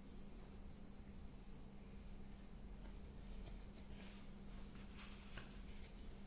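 Faint scratching of a pen drawing on paper in short irregular strokes, a little stronger about four to five seconds in, over a steady low background hum.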